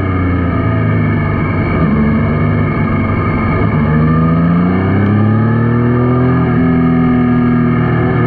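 Yamaha Niken's 847 cc three-cylinder engine in second gear. The revs fall as it slows, climb again between about three and five seconds in as it pulls away, then hold steady.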